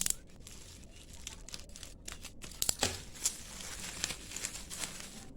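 Plastic packaging being handled and opened, crinkling and tearing with irregular sharp crackles.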